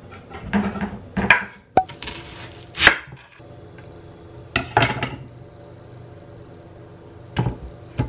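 Chef's knife cutting a peeled white onion on a bamboo cutting board: several sharp, irregular chops and knocks of the blade and onion halves on the wood, over a low steady hum.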